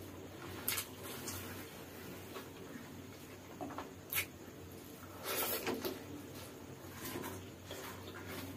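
A person chewing and eating chicken noodles by hand, with wet mouth clicks and hand-on-leaf noises. There are a few sharp clicks, and a louder stretch of chewing a little past halfway.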